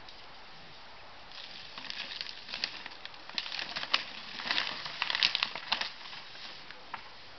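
Snow crunching and crackling as a man works and shifts a homemade wheeled lever cart loaded with a wooden platform. A run of crunches starts about a second in, is loudest in the middle and dies away near the end, with a few sharp clicks.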